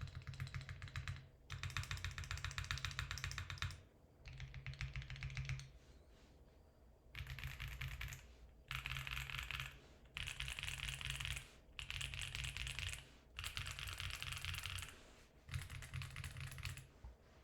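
Custom mechanical keyboard (Geon Works F1-8K with 1 mm aluminium plate and plate and case foam) with factory-lubed Geon HG Black linear switches and Lin Works keycaps, typed on quickly in runs of a second or two with short pauses. There is a longer pause about six seconds in, and the typing stops near the end.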